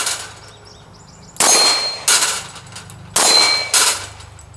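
Glock pistol shots at steel plates: two hits about two seconds apart, each plate ringing with a clear metallic tone, and each followed well under a second later by another loud crack.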